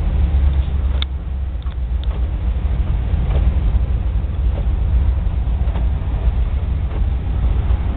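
Steady low engine and road rumble heard from inside the cab of a 1957 Chevrolet convertible driving on wet pavement, with faint light clicks about once a second.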